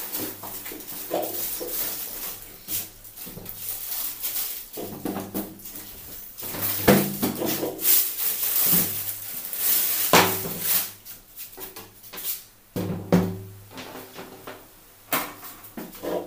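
Background music with drums, over the crinkling and rustling of plastic wrapping and cardboard as an amplifier is unwrapped.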